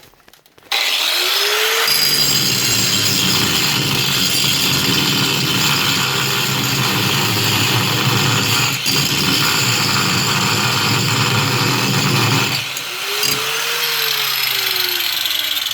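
Angle grinder switched on under a second in, its whine rising as it spins up, then grinding steadily into a steel seat bolt and hex plate on a school bus floor. Near the end the grinding noise drops away and the motor's whine rises and then falls.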